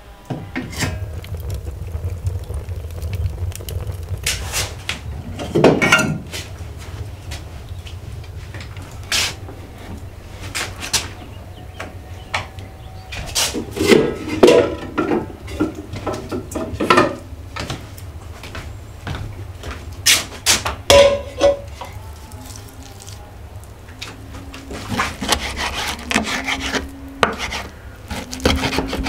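Kitchen handling sounds: scattered knocks and clatter of crockery and wooden utensils, busiest about halfway through. Near the end, a knife cuts raw pork on a wooden board in quick repeated strokes, over a low steady hum.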